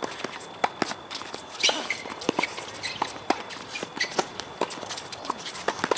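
Tennis rally on a hard court: sharp pops of the ball off rackets and taps of it bouncing, mixed with players' shoes scuffing and stepping on the court surface.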